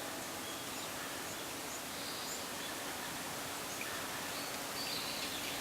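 Bamboo grove rustling steadily, a soft even hiss of leaves and stems. A few faint, short, high bird calls come through about two seconds in and again near the end.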